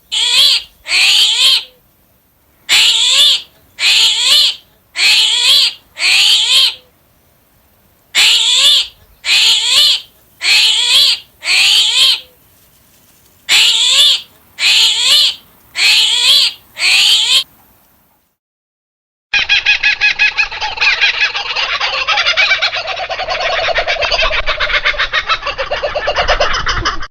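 A bird calling loudly and repeatedly, in runs of two to five short calls, each well under a second long. After a short break, a dense chorus of many birds calls over one another.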